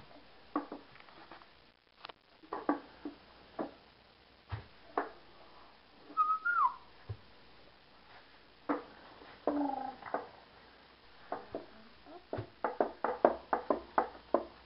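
Scattered short taps and clicks, quickening into a rapid run of taps near the end, with one brief whistle-like note that falls in pitch about six seconds in.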